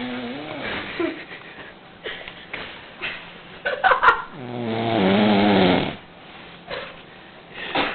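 An old man snoring: one long, loud snore with a wavering pitch a little past halfway through, just after a short, sharper noisy burst, with fainter snoring sounds near the start.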